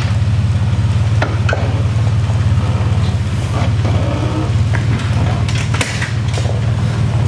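Lifted pickup truck's engine running low and steady as the truck crawls slowly over a stripped car shell, with scattered sharp creaks and cracks from the crushed body.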